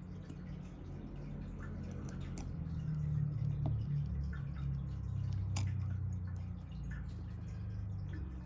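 A few faint, sharp clicks of small metal parts of a button-lock folding knife being handled during reassembly, over a low hum that swells in the middle.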